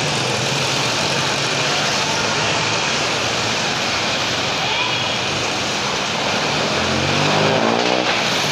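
Busy street traffic with steady motor noise. About seven seconds in, a vehicle's engine rises in pitch as it accelerates past.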